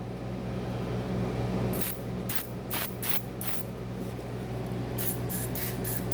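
Aerosol penetrating oil sprayed in a series of short hisses, in two groups, onto a stuck lawn-tractor wheel bearing to loosen it. A steady low hum runs underneath.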